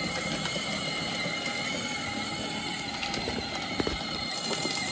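Kids' ride-on tractor with upgraded 24-volt electric motors driving over asphalt: a steady whine from the motors and gearing over the rolling noise of its tracked wheels, with a few scattered clicks.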